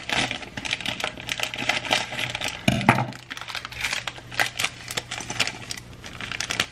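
Plastic bag of brownie mix crinkling as it is handled and pulled open, many sharp crackles in quick succession, with one dull thump about three seconds in.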